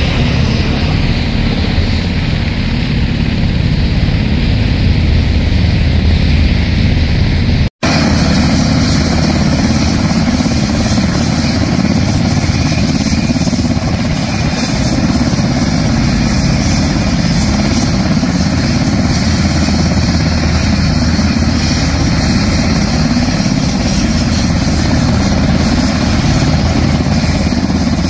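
UH-60 Black Hawk helicopter flying overhead, its rotor and twin turboshaft engines running steadily. After a sudden cut about eight seconds in, several parked UH-60 Black Hawks run on the ground at idle, a steady engine and rotor noise.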